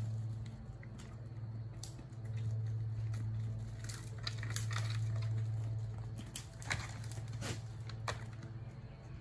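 Goats butting heads and scrambling on a rocky slope: a series of scattered sharp knocks and hoof clatter over a steady low hum.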